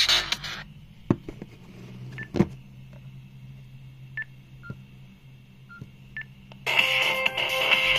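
Electronic dance music from a Nokia 6120's small loudspeaker cuts off about half a second in. Then come a few clicks and about five short keypad beeps as buttons are pressed on a Nokia N79. Near the end, electronic music starts again loudly from a phone speaker.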